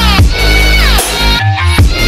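Background music: an electronic beat with heavy bass and synth notes that slide down in pitch, the bass dropping out briefly about one and a half seconds in.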